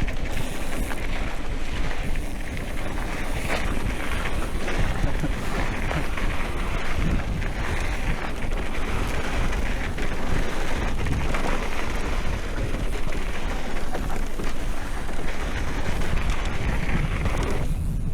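Wind buffeting the microphone: a continuous rumbling rush, heaviest in the bass, with no separate knocks or tones.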